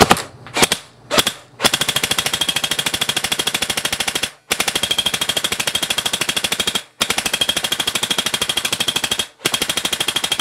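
Echo1 CPW airsoft electric gun shooting BBs at close range into a face mask fixed in front of the camera. Three single shots come in the first second and a half, then long full-auto strings of rapid, even shots broken by three short pauses, with the BBs striking the mask.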